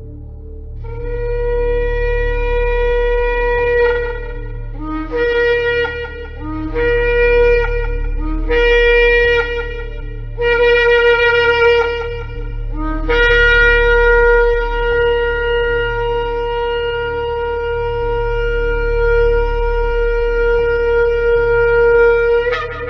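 Shofar (ram's-horn trumpet) being blown. A held blast comes first, then several short blasts that each jump up from a lower note. Last comes a long steady blast of about nine seconds that lifts sharply in pitch just before it stops.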